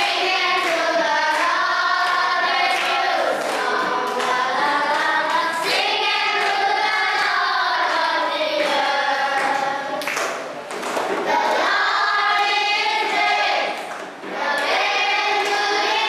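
A group of children singing a song together in unison, with hand clapping along.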